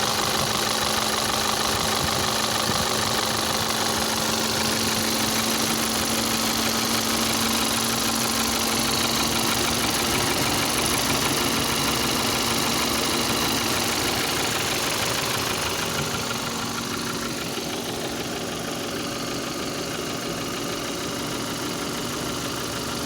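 Volkswagen Passat CC's 2.0 TSI four-cylinder engine (EA888 gen 1) idling with a knock, a 'tah-tah-tah' of the kind almost always caused by the pistons. It is damage to the third cylinder's piston and spark plug. The engine gets a little quieter about two-thirds of the way through.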